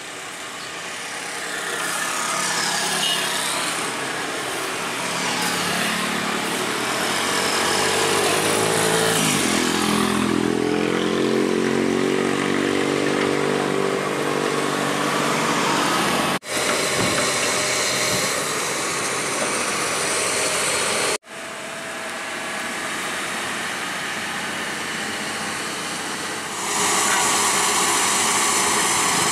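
Hitachi hydraulic excavator's diesel engine running under load, revving up and back down around the middle as the hydraulics work the boom. The sound drops out sharply twice, and it gets louder near the end.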